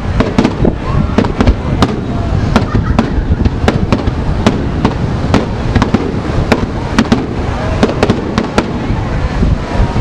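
Aerial firework shells bursting in quick succession: a dense string of sharp bangs, several a second, over a continuous low rumble.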